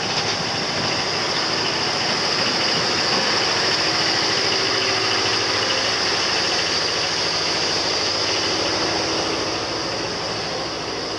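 A parked articulated lorry with a refrigerated box trailer running steadily: a low hum under a high hiss. It grows louder over the first few seconds as the lorry is passed, then fades slowly towards the end.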